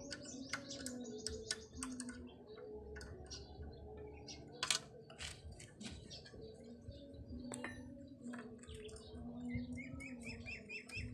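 Irregular light clicks and taps from hands handling a bicycle's front brake cable and metal fittings. Small birds chirp in the background, with a quick run of chirps near the end.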